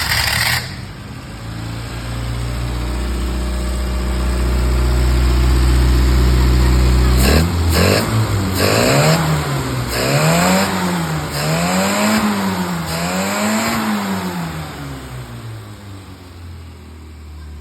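Ministox racing car engine catching as it starts, idling steadily for several seconds, then revved up and down four times before dropping back to idle. It runs on a newly fitted carburettor that replaced a wrecked one behind a misfire, and it sounds a lot better.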